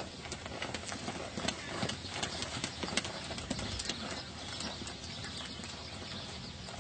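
Hoofbeats of a ridden horse moving over an arena's dirt footing: a run of irregular knocks, thicker in the first half and sparser later.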